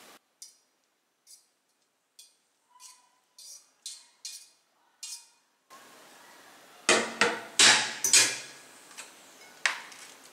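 Aluminium colander and cooked sweet potato leaves on a plastic cutting board: a run of light taps as the leaves are shaken out, then a few loud metallic knocks and clatters about seven seconds in as the colander is handled, and a knife tap on the board near the end.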